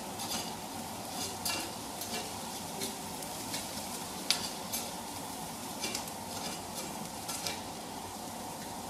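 Onions sizzling in a frying pan while a spatula stirs them, with many light scrapes and taps of the spatula against the pan.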